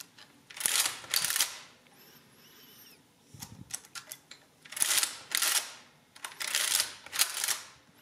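Victor Series 6 full-keyboard adding-listing machine worked by its hand crank three times. Each pull is a clattering forward-and-back stroke as the register cycles and the printer strikes the paper tape. Between the first and second pulls there are a few lighter clicks.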